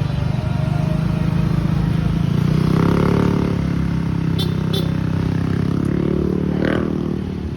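A motorcycle engine running close by, starting abruptly and swelling in pitch and loudness briefly about three seconds in and again near the end.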